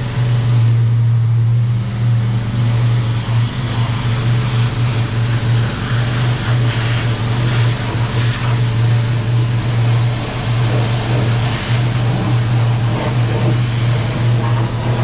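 Engine-driven pressure washer running steadily, with the hiss of its water spray and irregular spatter from about six seconds in.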